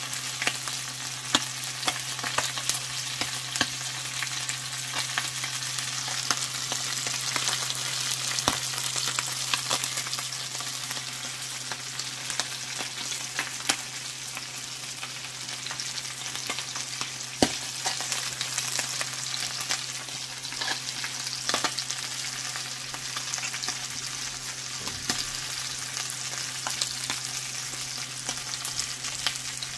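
Hot oil sizzling around whole mackerel frying in a stainless steel pan, with frequent sharp pops and crackles. A steady low hum runs underneath.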